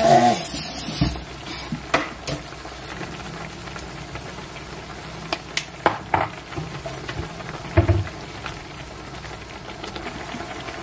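Food cooking in a pot on the stove: a steady sizzling hiss, with a spoon or ladle clattering against the pot at the start and clinking against it a handful of times after.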